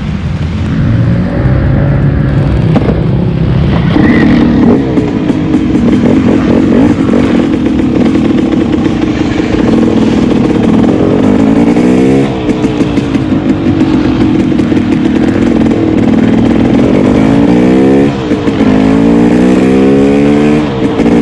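KTM 300 XC two-stroke dirt-bike engine running as the bike is ridden. In the second half its pitch climbs in rising sweeps as it accelerates, each broken by a short dip where a gear is changed, three times.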